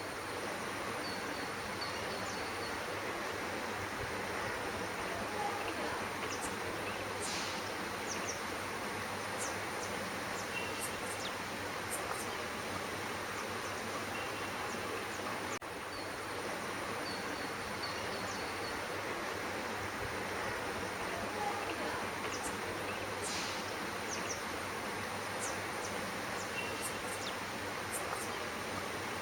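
Steady outdoor ambient noise with a thin, constant high-pitched hiss and a few brief, high chirps scattered through it. No koel call is heard; a yawning bird makes no sound.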